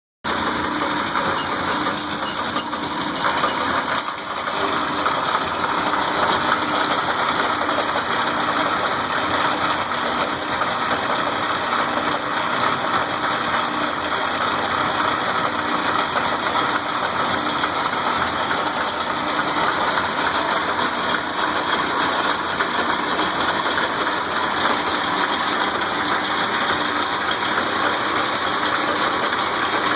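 Davis belt-driven lathe running steadily, its belts, pulleys and gearing making a continuous mechanical clatter, with a brief dip and click about four seconds in.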